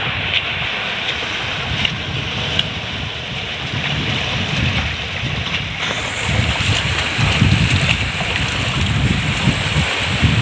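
Wind buffeting the microphone over shallow sea water washing among mangrove roots; the rumble grows stronger and gustier about halfway through.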